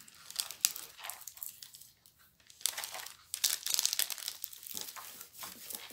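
Packaging crinkling and rustling as it is unwrapped by hand, in irregular crackly bursts with a brief lull about two seconds in.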